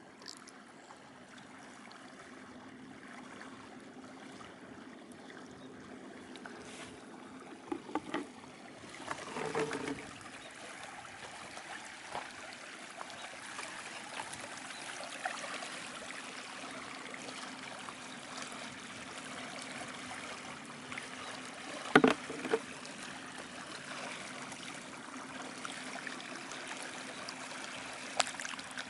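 Steady flowing water, a stream-like rush and trickle. A few sharp knocks break in, the loudest about two-thirds of the way through.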